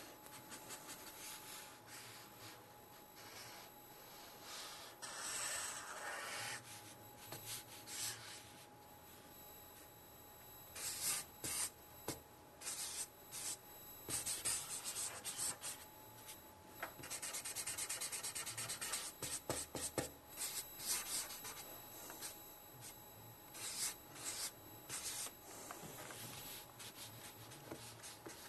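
Felt-tip marker drawn across paper: short scratchy strokes and squeaks as ink lines are laid down, with a run of quick repeated back-and-forth strokes a little past halfway.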